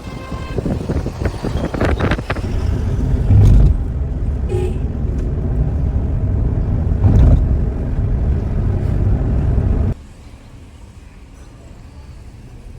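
Vehicle on the move: a heavy low road rumble that swells louder a few times, with a short pitched tone at the very start. About ten seconds in it cuts off abruptly to a much quieter background.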